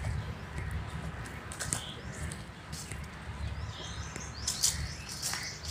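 Outdoor garden ambience: scattered short bird chirps over a low, steady rumble, with a small cluster of chirps about four seconds in.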